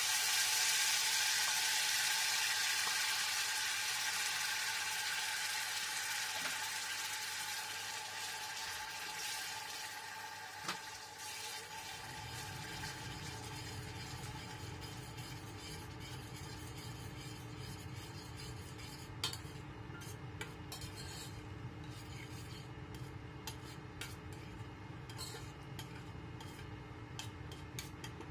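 Ground chili-and-tomato sambal paste sizzling loudly as it hits hot oil in a stainless steel saucepan, the sizzle slowly dying down as it cooks. A metal spoon stirs it, with scattered clicks and scrapes against the pan in the second half, and a low steady hum comes in about halfway.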